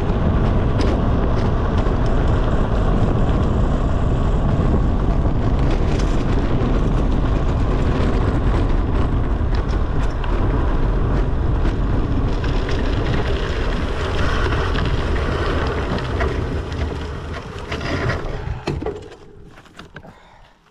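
Heavy wind buffeting on the microphone of a camera on a bicycle descending fast, mixed with tyre and road noise and scattered clicks and knocks over bumps. It dies away near the end as the bike slows.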